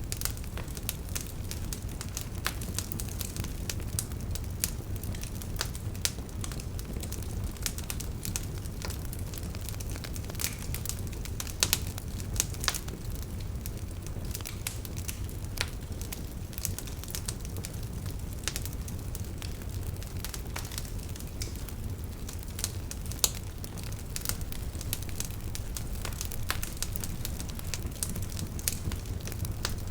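Wood fire in a fireplace crackling and popping, with irregular sharp pops over a steady low rumble of the flames.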